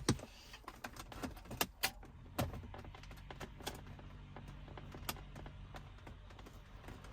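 Scattered metal clicks, clinks and knocks of radio removal keys and the old cassette head unit being worked loose and pulled out of a car dash, with a louder knock about two and a half seconds in.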